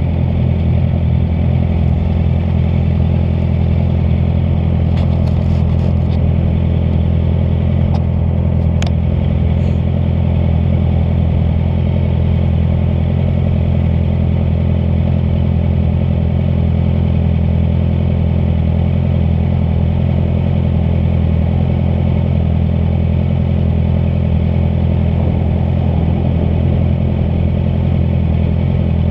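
Honda CBR650F motorcycle's inline-four engine running at a steady, unchanging speed, with a few faint clicks about a third of the way in.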